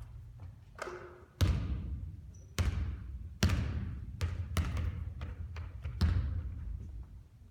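Basketball bouncing hard on a court: a series of sharp bounces, some about a second apart and a few in quicker succession, each trailing off.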